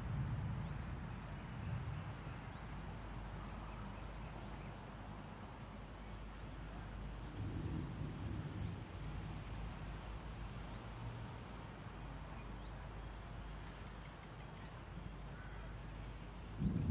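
Coastal forest ambience at dawn: small creatures repeat short runs of high, rapid chirps over a steady high hum, with a low rumble underneath.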